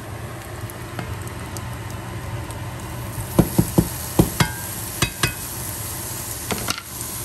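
Diced ham dropping into a hot hex-patterned stainless frying pan, with a steady sizzle. Sharp taps and clatter against the pan come from about three and a half seconds in to just past five seconds, and twice more near the end.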